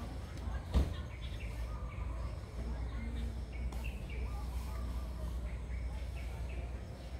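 Outdoor ambience: a steady low rumble with scattered short high chirps. A single sharp knock about a second in.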